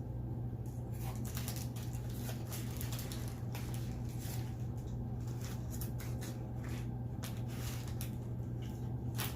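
Close-up chewing of food: irregular small clicks and smacks from the mouth, over a steady low hum.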